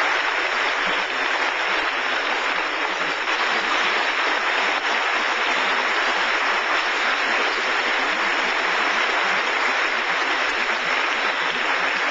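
Audience applauding steadily in a dense, even wash of clapping.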